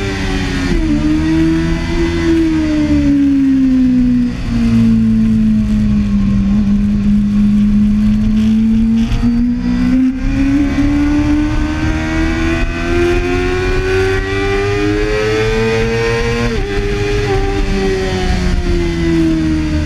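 Kawasaki ZX-6R sportbike's inline-four engine heard onboard at track speed, with wind noise underneath. The revs drop about a second in and sag low for several seconds. They then climb steadily for about eight seconds under acceleration, drop sharply near the end, and fall away.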